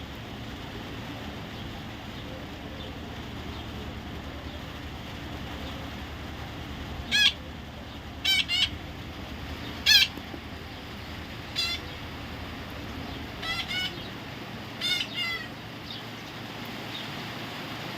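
Parrot giving a series of short, sharp squawks, singly and in quick pairs, starting about seven seconds in, over a steady background hum.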